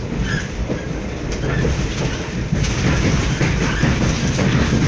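Moving train heard from inside the carriage: a steady rumble of the wheels running on the rails.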